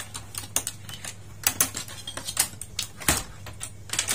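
Irregular sharp clicks and clacks of the Toshiba 32P1400VJ TV's aluminium LED backlight strips being unclipped and lifted off the plastic back chassis, with a low steady hum underneath.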